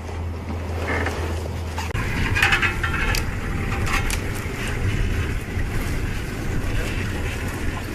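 A low, steady engine drone that turns rougher and louder about two seconds in, with a few brief crackles over it.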